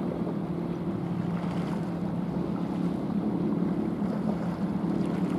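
Cement carrier's engine giving a steady low hum as the ship passes close, over wind noise on the microphone and the wash of water.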